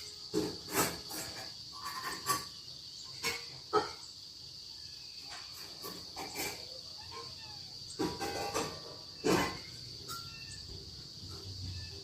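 Crickets keep up a steady high chirring. Several irregular sharp knocks or clicks stand out over it, the loudest sounds here.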